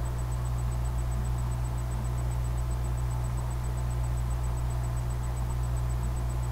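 Steady low hum with an even hiss and a faint high-pitched whine, with no other sound: background noise of the recording.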